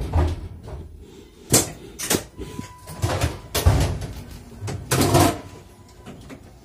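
Several separate knocks and door bangs inside a passenger railway carriage.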